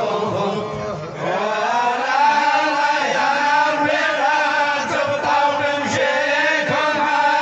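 Male voices chanting a Sufi dhikr, drawing out long, steady sung notes.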